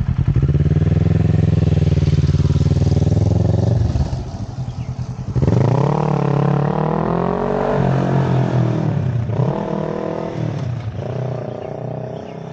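Kawasaki Z650 parallel-twin through an Akrapovic exhaust: a steady, loud engine note for about four seconds as the bike pulls off, then the revs climb in several rising steps through the upshifts while the sound fades as the motorcycle rides away.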